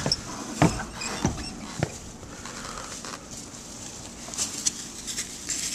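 A few light knocks, about every half second at first, then faint scattered rustling and ticking as things are handled.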